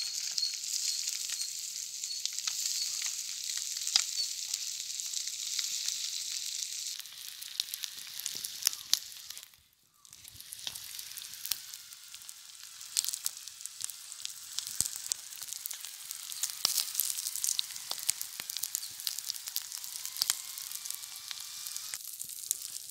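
Masala-coated eggs sizzling in oil on a flat metal griddle over a wood fire: a steady frying hiss dotted with many small crackles and pops. The hiss is loudest for the first several seconds, then softens, and cuts out briefly near the middle.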